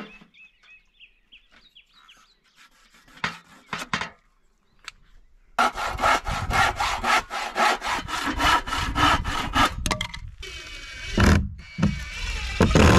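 Hand saw cutting through a wooden board in quick back-and-forth strokes, about four a second, starting about halfway in and lasting some four seconds. A few knocks near the end.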